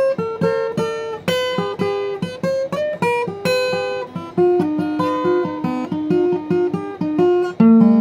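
Acoustic guitar playing a blues instrumental passage: a steady run of picked notes with no singing.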